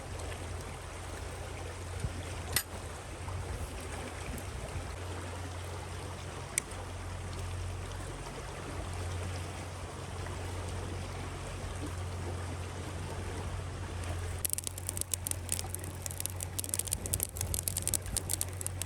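A rushing river running steadily, with a deep rumble under the flow. A couple of single sharp clicks come early on, and about three-quarters of the way through a dense run of sharp crackling clicks begins over the water.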